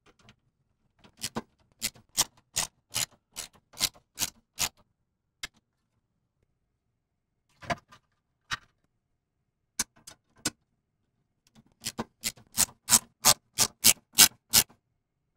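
Screwdriver driving fan screws through the case into Corsair LL120 fan frames: two runs of sharp, regular clicks, about two to three a second, with a few stray clicks between.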